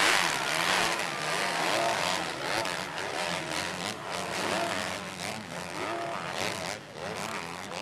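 Several motocross dirt bikes racing on a dirt track, their engines revving up and down as the riders accelerate and shift. The engine noise is loudest about the first second.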